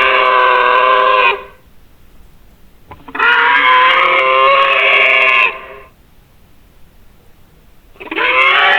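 Nanotyrannus dinosaur sound effect: long, harmonic-rich creature calls, one ending about a second and a half in, a second lasting about two and a half seconds in the middle, and a third starting near the end.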